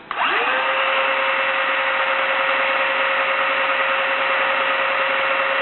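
Electric motor of a T&B Battpac battery-hydraulic crimper driving its hydraulic pump: it spins up quickly to a steady whine as the ram advances.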